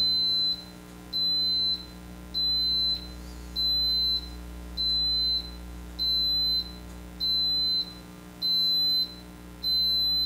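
Mealthy Multipot electric pressure cooker beeping at the end of its pressure-cook cycle: a high-pitched single-tone beep about half a second long, repeating evenly about once every 1.2 seconds, nine times.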